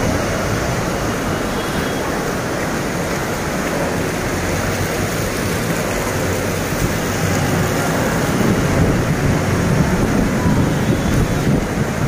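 Steady rushing of heavy monsoon rain and fast-flowing floodwater over a road, growing a little louder in the last few seconds.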